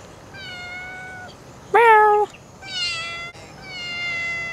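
Domestic cat meowing four times. The second meow is short and the loudest, and the last is long and drawn out.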